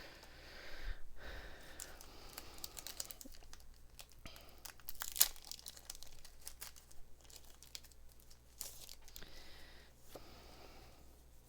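A foil booster-pack wrapper being torn open and crinkled in the hands, in irregular crackles with the loudest rip about five seconds in.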